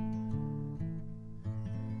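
Acoustic guitar strumming the song's closing chords. The last chord is struck about one and a half seconds in and left to ring and fade.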